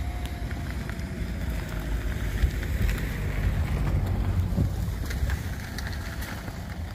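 Wind buffeting the microphone, with the footsteps of someone walking on gravel showing as scattered short crunches.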